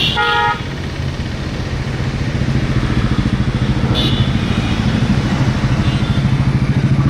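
An engine running steadily with a fast pulsing beat, growing louder over the first few seconds and then holding. A short pitched sound comes at the very start.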